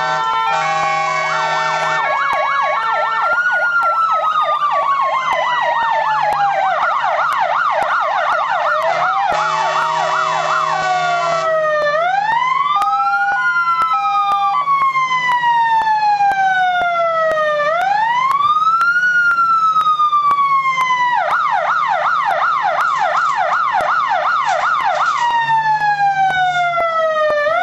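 Fire engine's electronic siren cycling through its tones. It starts with a quick stepped multi-tone pattern, then switches between slow wails that rise quickly and fall slowly and fast yelping sweeps several times a second.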